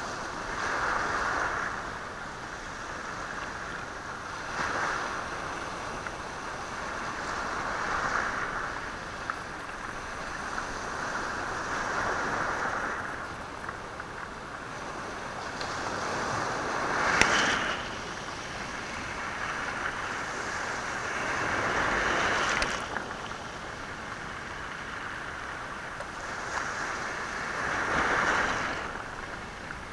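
Sea waves washing over a stony shore, surging and drawing back every few seconds with the rattle of stones rolled by the water. One sharp clack of stones stands out a little past halfway.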